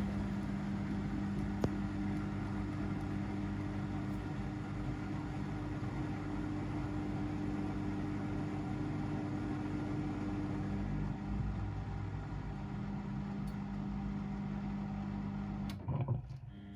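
Laundry machines running: a steady motor hum with low tones over a rushing noise, which cuts off abruptly near the end.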